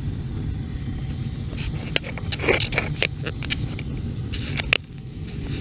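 Gas water heater's main burner running, a steady low rumble. From about a second and a half in, scraping and a run of clicks from handling around the heater.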